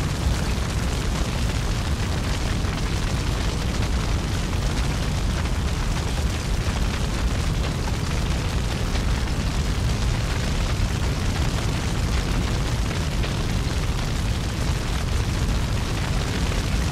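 A steady, dense rumbling roar of noise, heaviest in the bass and unchanging in level.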